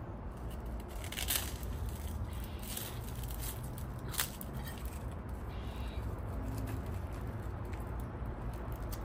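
Quiet eating at the table, with chopsticks picking up food: a few brief crisp rustles and one sharp click about four seconds in, over a steady low hum.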